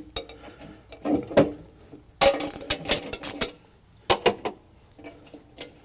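Metal parts of a leaf-vacuum blower housing being handled and taken apart, with clinks and clanks. There are several sharp metallic knocks with short ringing, about a second in, around two seconds and around four seconds.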